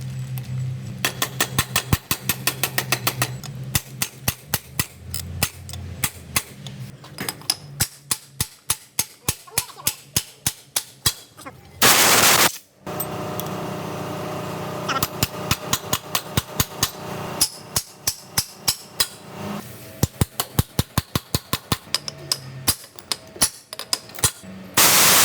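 Runs of rapid, sharp strikes on metal, hammering during a truck gearbox overhaul, with two short loud bursts of hiss about twelve seconds in and near the end.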